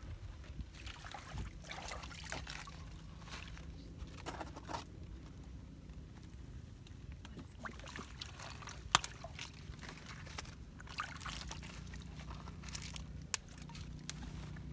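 Shallow, muddy pond water sloshing and trickling as hands and bare feet move through it, in irregular splashes. A few sharp clicks, the loudest about nine seconds in, with a faint steady low hum underneath.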